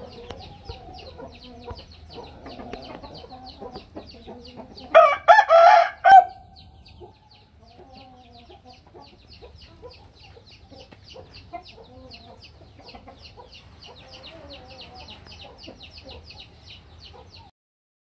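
Rooster crowing once, loud and short, about five seconds in, with softer clucking of chickens around it.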